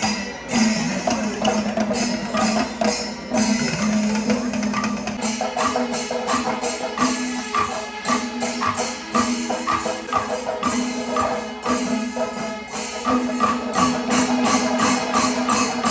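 Percussion ensemble of drums and small hand cymbals playing a fast, steady rhythm over a sustained low tone, as played at a Kerala temple festival procession.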